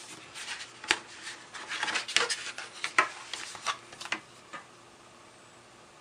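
A blade pressed hard through the tough back of a Belkin iPad 2 case, cutting and scraping in a string of sharp clicks and short scrapes that stop about four and a half seconds in.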